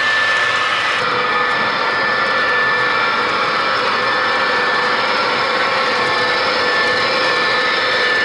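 Model train running on a layout: the MTH CSX ES44AC GEVO locomotive's onboard sound system plays a steady diesel engine sound with a high whine, over the rolling of the cars on the track. The sound changes abruptly about a second in.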